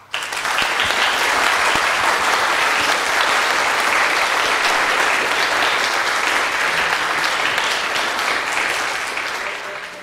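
An audience applauding: many people clapping together, starting abruptly and keeping up steadily before dying down near the end.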